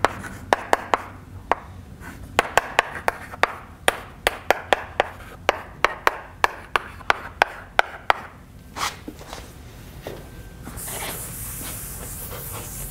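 Chalk writing on a chalkboard: quick sharp taps and clicks of the chalk striking the board, several a second, for most of the first eight seconds. From about eleven seconds in, a blackboard eraser rubbing across the board with a steady scratchy hiss.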